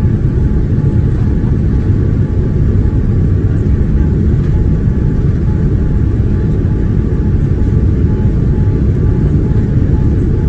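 Steady loud rumble of a Boeing 787-9 jet airliner, heard from inside the cabin, with a faint steady whine above it.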